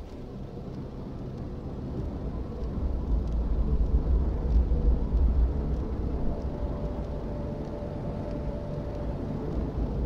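Low rumbling wind noise that swells about four to five seconds in. A faint held tone enters about six seconds in.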